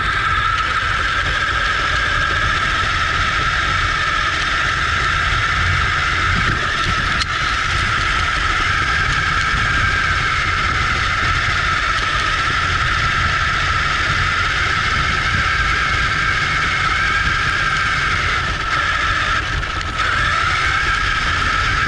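Battery-powered radio-controlled side-by-side buggy driving, heard from a camera mounted on the car: a steady motor and gear whine over rumble from the tyres on the road. The whine dips briefly near the end and climbs back as the car speeds up again.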